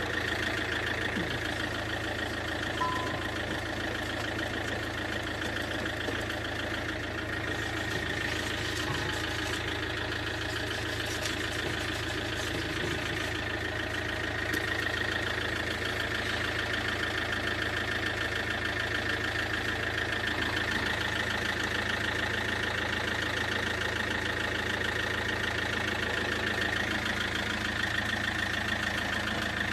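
Steady mechanical hum of an idling engine, unchanging throughout, with a few faint knocks from handling in the middle.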